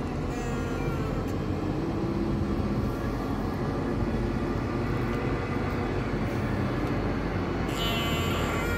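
Heavy demolition machinery running steadily with a low diesel engine rumble. A high metallic squeal starts near the end.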